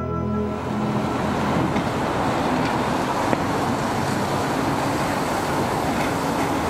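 Steady engine noise across open water, from jet skis racing on the river, as orchestral music fades out in the first second.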